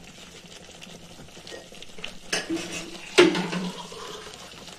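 Steel spoon stirring thick gravy in a metal kadhai, scraping the pan, with two sharp clinks of spoon on pan about a second apart in the second half; the second is the louder.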